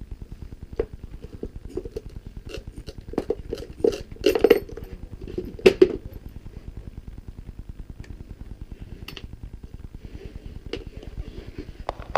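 Scattered metallic clinks and knocks of tools and fittings being handled, loudest a few seconds in. Under them runs a steady low throbbing hum.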